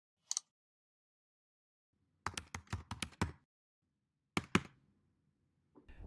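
Computer keyboard typing: a single keystroke, then a quick run of seven or eight keystrokes, then two more strokes near the end.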